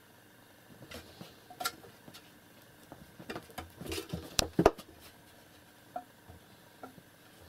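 A kitten and an adult cat scuffling on a sofa: a flurry of paw thumps, scratches and knocks, busiest about three to five seconds in, then two single taps.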